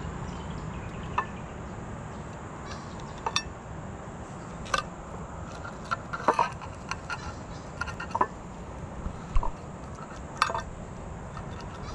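A filleting knife clicking and tapping against the cutting surface while the pin bones are cut out of a flathead fillet: about half a dozen short, sharp clicks spread out over a steady background hiss.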